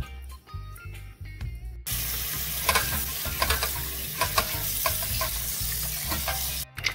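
Background music, then about two seconds in a kitchen tap starts running hard onto raw chicken feet in a pot as hands rub and rinse them: a steady hiss of water with splashing and clicks. The water sound cuts off suddenly near the end.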